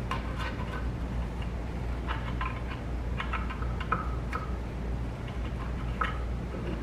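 Scattered light clicks and ticks in small clusters over a steady low hum, from a hot-stapler plastic welder and its staple being worked against a cracked plastic part.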